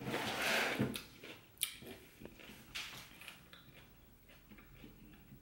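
Crunchy chewing of raw cucumber, loudest in the first second, followed by a few faint clicks and softer chewing.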